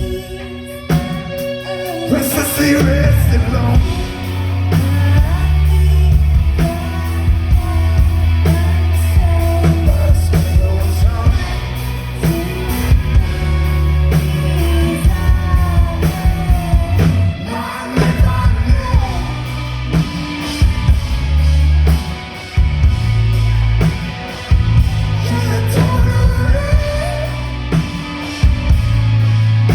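Live rock band playing, heard through a phone's microphone: electric guitars, bass and drum kit with a singing voice over them.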